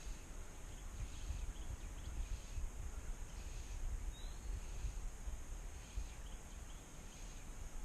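Outdoor natural ambience with no speech: a fluctuating low rumble of wind on the microphone, a steady high-pitched insect drone, and a few faint bird chirps, one a short rising note about four seconds in.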